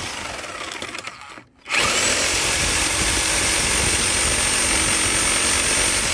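Electric drill running with a steady high motor whine. It stops briefly about a second and a half in, starts again and runs steadily, then spins down at the end.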